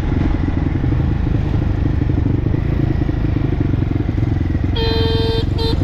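Dirt bike engine running steadily under way. Near the end a horn sounds twice, a longer honk and then a short one.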